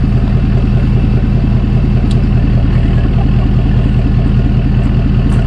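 Truck engine idling steadily, with an even, rapid pulse.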